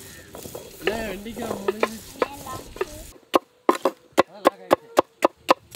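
Outdoor background with faint voices, then from about three seconds in a knife chopping okra on a wooden cutting board: quick, even cuts, about four a second.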